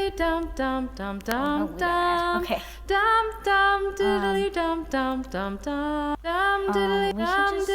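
A recorded song playing back: a high female-sounding voice sings a melody of held notes, with little or no accompaniment heard.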